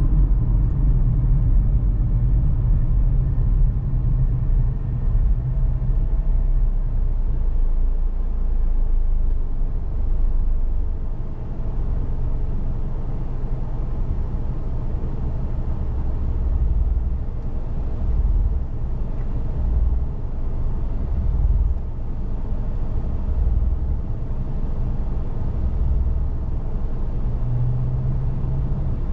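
A car driving along a road: a steady low rumble of tyre and engine noise.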